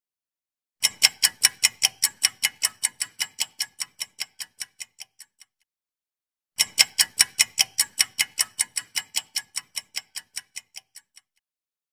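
Clock-ticking sound effect for a quiz countdown timer: two runs of quick, even ticks, about five a second. Each run starts loud and fades away over about four and a half seconds, with a second of silence before the next begins.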